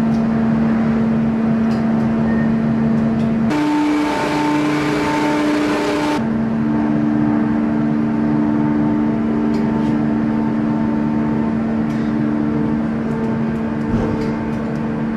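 Steady hum of heavy forging machinery in a ring-rolling mill plant, a mechanical drone over rumbling noise. It jumps abruptly to a different pitch twice, a few seconds in and again about six seconds in.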